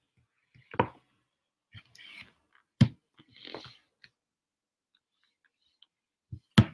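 Handling at a whiteboard: a few hard knocks against the board, the loudest about three seconds in and another near the end, with short rubbing swishes of an eraser wiping the board between them.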